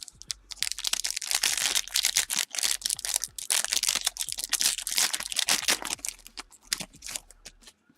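Plastic wrapping crinkling and crackling in a dense run of rapid crackles as it is handled, fading out near the end.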